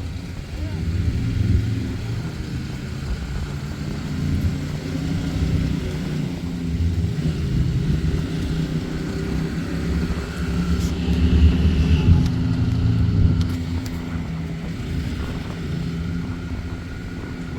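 ATV engine running under way, its pitch rising and falling as the throttle changes, loudest about two thirds of the way in.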